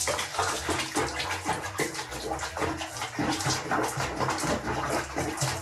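Water running and splashing steadily, like a bathtub or basin being filled.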